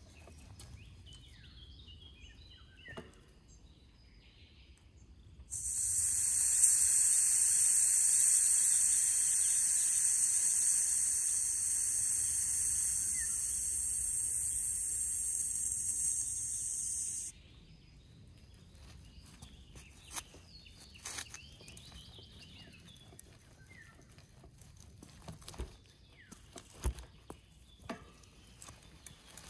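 Air hissing out of a mountain bike's rear tyre valve as the tyre is let down: a loud, even hiss that starts suddenly about five seconds in, runs for about twelve seconds and cuts off suddenly.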